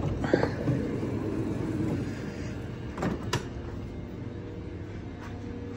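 Passenger train's sliding doors opening after the door button is pressed, with a short sliding rush over the first second or two. Two sharp knocks follow about three seconds in, over the train's steady low hum.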